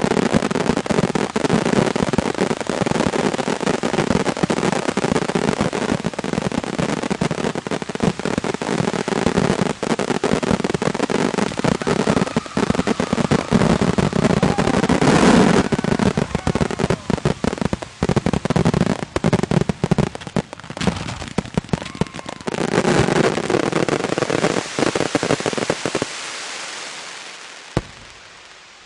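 A dense barrage of fireworks: many overlapping bangs and crackling reports with no pause. About 26 seconds in it dies away into scattered crackle, with one last bang near the end.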